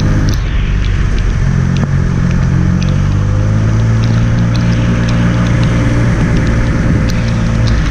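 Triumph Speed Triple 1200 RS's inline-three engine running at low, fairly steady revs, the pitch shifting slightly now and then.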